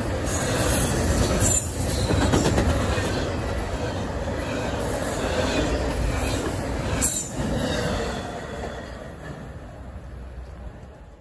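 Double-stack intermodal freight cars rolling past at speed: a steady rumble and rattle of steel wheels on rail with a few brief high wheel squeals. The sound fades over the last few seconds as the end of the train passes.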